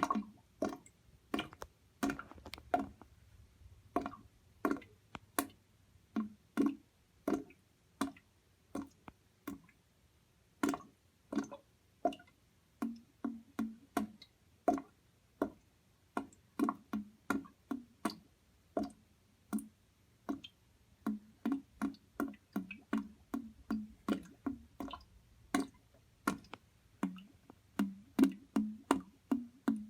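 Water bubbling and gurgling: a string of separate bubble plops at an uneven pace, coming more thickly in the second half.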